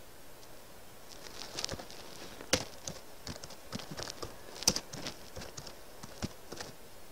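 Computer keyboard typing: a run of irregular keystroke clicks, two of them louder, about two and a half and four and a half seconds in.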